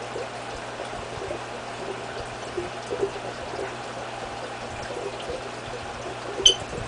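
Aquarium water trickling and splashing steadily over a low steady hum, with one sharp short click near the end.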